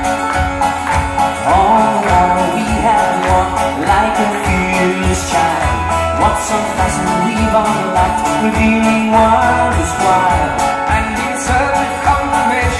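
Two acoustic guitars strummed in a steady rhythm in a live duo performance, with a man singing over them.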